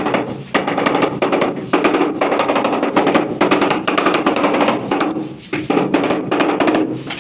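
Rubber mallet tapping rapidly and repeatedly on a large wall tile, bedding it into the adhesive, with a short let-up about five seconds in.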